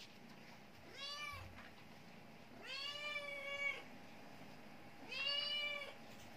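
A young cat meowing three times, each call rising then falling in pitch, the second one long and drawn out. It is meowing to be petted.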